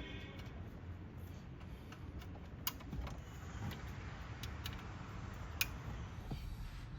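Faint handling sounds as wiring and plastic trim are put back in place: a few scattered light clicks and taps over a low steady background.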